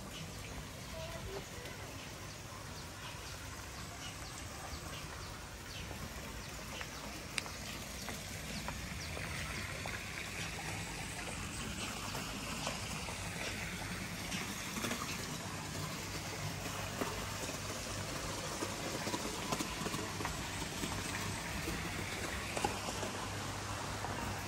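Scattered footsteps on a hard floor over a steady background hiss.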